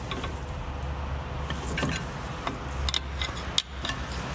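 Scattered sharp metallic clicks and scrapes of hand tools working on a brake caliper, over a steady low hum.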